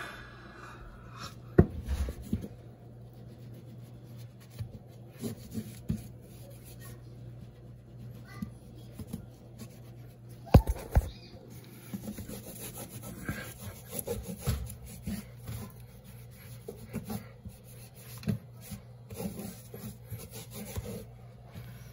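A damp cloth wipe scrubbing back and forth over a textured painted wall and around an outlet cover, in irregular rubbing strokes. There are two sharp knocks, about one and a half seconds in and about halfway through.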